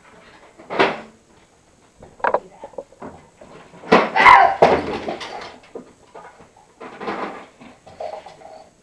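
Scattered knocks and bangs of a large plastic toy being handled against a table, with brief children's voices. The loudest bangs come about four seconds in.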